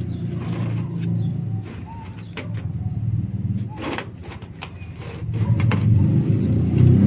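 Low engine rumble of a motor vehicle running nearby, growing louder about five seconds in, with a few light clicks.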